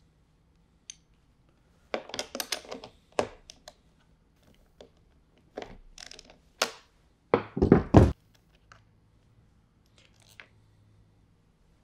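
Ratchet and socket clicking and clinking against a battery terminal bolt while a jumper is removed, in short runs of clicks, with two heavy thunks about eight seconds in.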